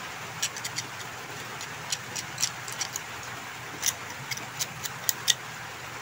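Light, irregular metallic clicks and scratches from a small tool scraping the corroded battery spring contact of a wireless microphone to clean it.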